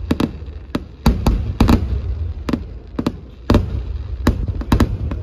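Daytime fireworks display: aerial firework shells bursting in a rapid, irregular volley of a dozen or more sharp bangs over a continuous low rumble.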